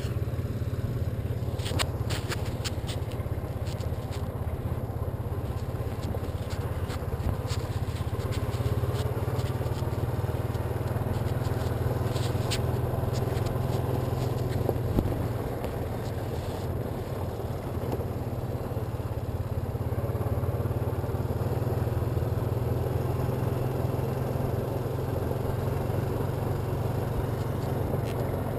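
Honda ATV engine running steadily as the quad rides along a gravel road, with tyre and gravel noise and scattered sharp clicks and rattles, most of them about two seconds in and again around twelve seconds.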